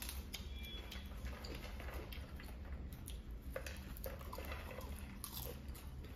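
Two people chewing mouthfuls of popcorn, with irregular soft crunches and rustles of popcorn picked up from the plates, over a steady low hum.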